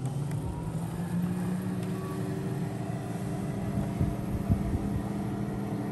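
Player piano's electric suction pump running steadily, its hum rising in pitch at the start as it comes up to speed, with a few light clicks from the roll mechanism.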